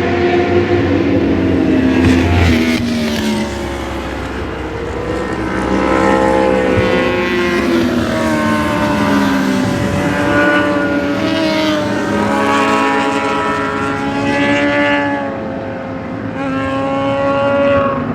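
Several racing motorcycles' engines passing at the track, their overlapping notes falling and rising in pitch through gear changes.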